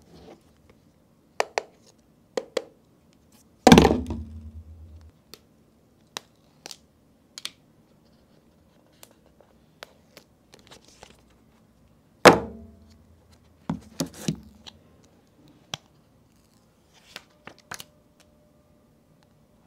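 Unboxing handling sounds: the phone's cardboard box and its wrapping being scratched, torn and opened, with scattered light clicks and taps. Two loud thuds come about four and twelve seconds in.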